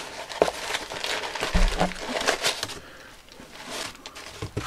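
Cardboard and crumpled brown packing paper being handled: irregular rustling and crinkling with a few sharp clicks and scrapes, and a dull thump about one and a half seconds in, as a boxed item is lifted out of a shipping carton.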